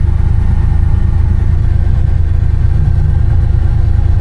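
Vehicle engine running steadily at a low, even pitch, with no change in speed.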